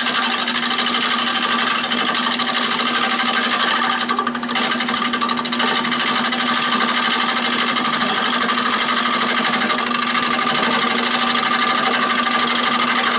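5/8 bowl gouge cutting an oak bowl blank spinning on a Nova 16/24 wood lathe: a continuous rough cutting noise over the lathe's steady hum, with a brief easing about four seconds in. The gouge is cutting well, much better than the dull one it replaced.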